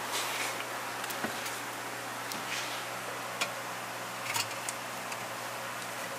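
Steady workshop background hiss with a low hum, broken by a few light clicks and knocks as the exhaust pipe is handled and lined up.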